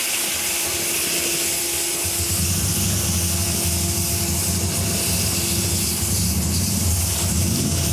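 Multi-Hire STR701 17-inch rotary floor sander running steadily just after switch-on, with a strong hiss and a steady motor hum as its 80-grit sheet works over wet concrete. A deeper rumble comes in about two seconds in and holds.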